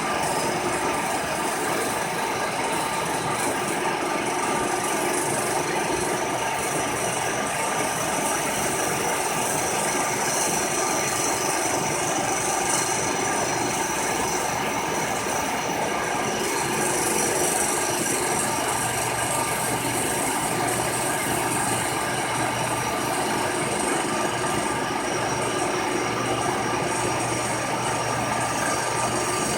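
Milling machine running a fly cutter across the face of an intake manifold, a steady, continuous cutting noise with a few constant tones over it.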